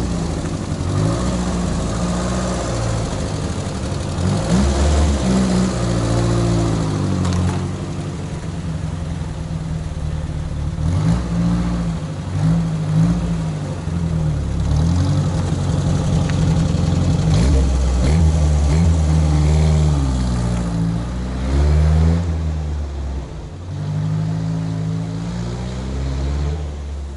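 Datsun A12 four-cylinder engine in a Suzuki SJ410 revving and pulling away, its revs rising and falling again and again as it accelerates through the gears, fading near the end.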